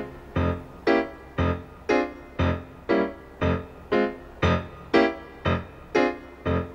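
Keyboard music, piano-like in tone, playing a slow, even accompaniment of single notes and chords, about two a second, each one dying away before the next.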